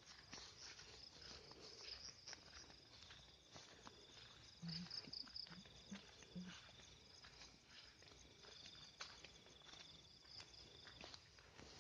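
Faint night insects, crickets, trilling steadily, with soft footsteps walking. A few short low calls come between about four and six and a half seconds in.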